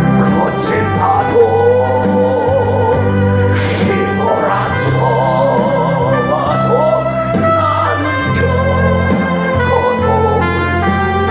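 Music: voices singing a melody over sustained organ-like keyboard chords, typical of worship-service hymn singing.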